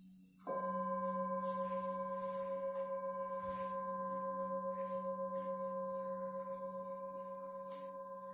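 A singing bowl is struck about half a second in over a low steady drone. Its ringing tone holds on with a slow, regular waver and fades gradually.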